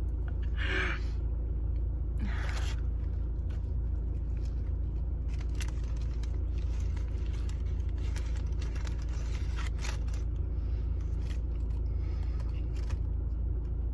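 Steady low hum of a car's running engine heard inside the cabin, with intermittent rustling and scraping of fast-food packaging.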